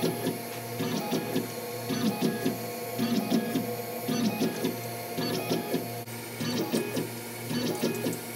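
Tormach PCNC 1100 CNC mill running an engine-turning program: a steady hum from the spindle under a quick, rhythmic mechanical chatter as the axes step and the spinning spring-loaded abrasive stick touches down spot after spot on the aluminium plate.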